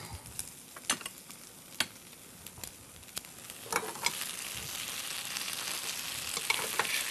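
A few light clicks of metal utensils, then from about four seconds in, green beans sizzling in a hot skillet as they are turned with metal tongs, the steady hiss growing slightly louder.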